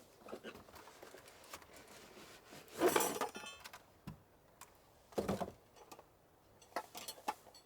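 Objects being handled by hand, with a few clinks and knocks: the loudest, with a brief ring, about three seconds in, another about five seconds in, and a few light taps near the end.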